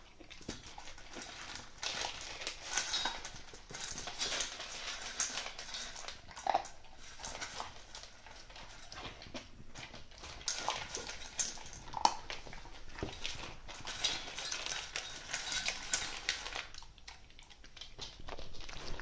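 Bull terrier puppy eating dry kibble: an irregular run of crackly crunches and chewing that thins out near the end.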